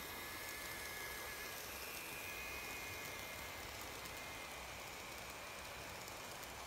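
N-gauge model train (a 251 series Super View Odoriko set) running along sectional track: a faint, steady rolling hiss of wheels on rails with a faint high motor whine.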